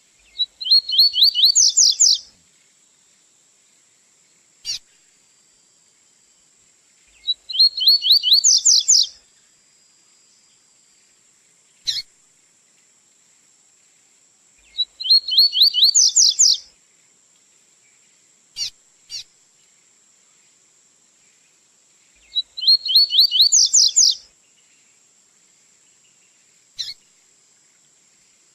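Double-collared seedeater (coleiro) singing its 'tui-tui' song: four phrases about seven seconds apart, each a fast run of repeated high notes rising in pitch and lasting about two seconds. Single short sharp notes fall between the phrases.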